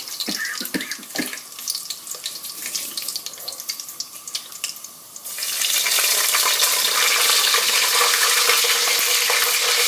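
Whole spices (cardamom pods and bay leaves) crackling and popping in hot vegetable oil in a pan. About five seconds in, a much louder, steady sizzle starts suddenly and keeps going.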